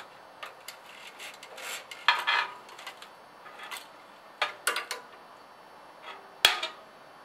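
Scattered light metallic clicks and small clatters as a throttle cable wire and the carburetor linkage of a small garden tractor engine are handled and worked into place, with the sharpest click about six and a half seconds in.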